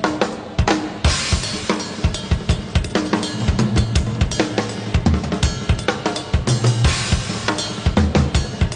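Live rock drum kit playing a busy, fast pattern of kick drum, snare and rimshot hits with cymbal crashes, with low bass notes held underneath.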